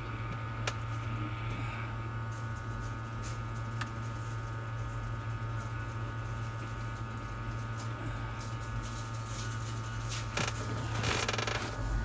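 Steady low electrical hum with a few faint clicks at a soldering bench. About ten and a half seconds in, rustling handling noise starts as the circuit board is picked up and moved.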